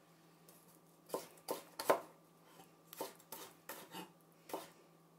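Kitchen knife chopping garland chrysanthemum (shungiku) greens on a cutting board: about eight sharp taps at an irregular pace.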